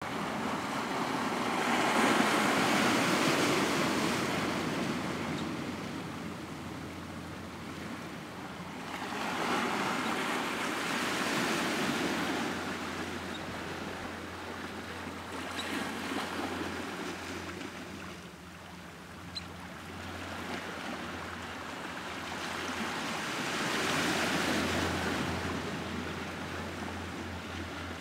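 Small waves washing onto a rocky cobble shore, the surf swelling and fading in slow surges several seconds apart.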